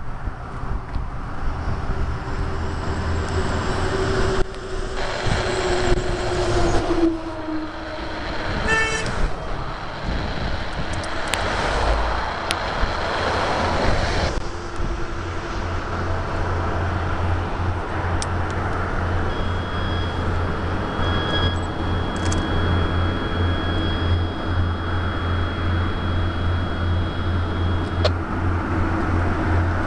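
Road traffic passing by, one vehicle with a falling pitch early on, then a steady low engine hum through the second half, with a brief horn-like toot near 9 s.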